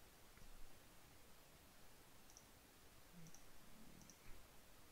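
Near silence with about three faint computer mouse clicks in the second half.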